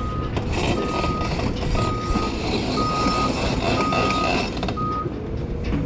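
Vehicle backup alarm beeping, one steady high-pitched beep about once a second, stopping about five seconds in, over a constant low rumble.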